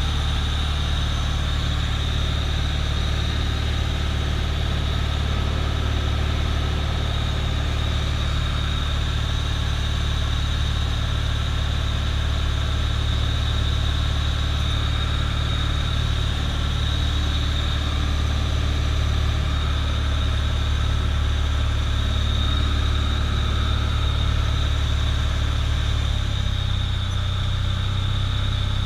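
Cockpit noise of a single-engine light aircraft in flight: the piston engine and propeller make a loud, steady drone. Near the end the engine's pitch shifts slightly with a power change.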